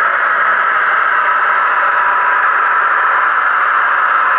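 Sound decoder of a model locomotive playing through its small loudspeaker: a steady hissing rush with hardly any low end.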